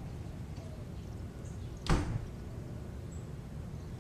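A single sharp knock about two seconds in, ringing on briefly, over a steady low rumble of outdoor background noise.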